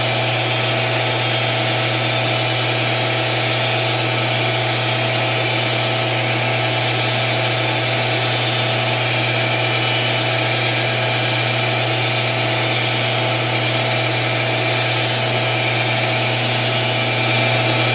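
Smithy combination lathe-mill-drill running steadily with a strong low motor hum while an aluminium-specific insert on a boring bar turns down an aluminium workpiece, over a steady spray hiss from the coolant nozzle that cuts off about a second before the end.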